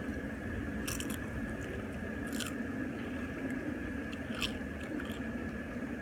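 Crunching and chewing on a crisp chip: three sharp crunches, about a second in, midway, and again later, over a steady rush of waterfall water.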